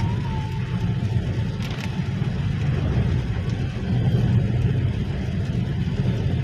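Car driving on a rain-wet road, heard from inside the cabin: a steady low rumble of engine and tyres.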